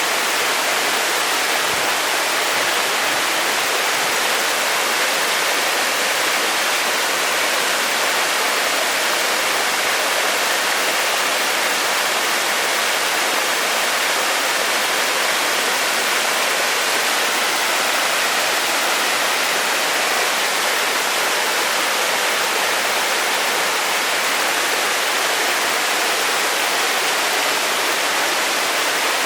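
Waterfall rushing steadily: an even, unbroken sound of falling water.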